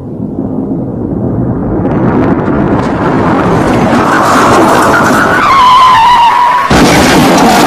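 Car sound effect: an engine revving up, with noise building steadily, then tyres screeching from about four seconds in, the squeal sliding slightly down in pitch. Near the end it cuts abruptly to a louder, harsher noise.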